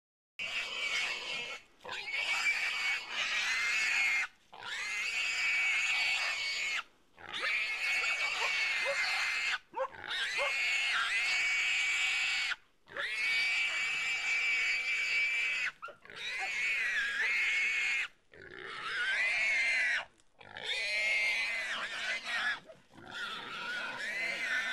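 Wild pig squealing while held by pig dogs: about ten long, high squeals of two to three seconds each, separated by short gaps.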